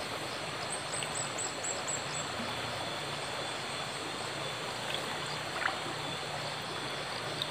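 Small forest stream flowing steadily, with a quick run of about six high, falling chirps about a second in.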